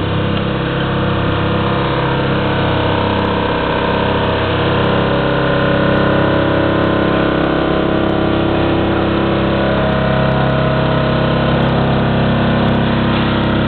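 Vacuumatic Vicount 3 pin-and-blade paper counting machine running steadily, with its suction and counting head working through a stack of copy paper.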